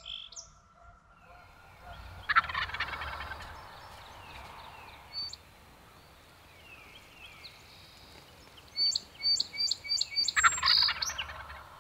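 Wild turkey tom gobbling twice, about eight seconds apart, each gobble a loud rattling call about a second long.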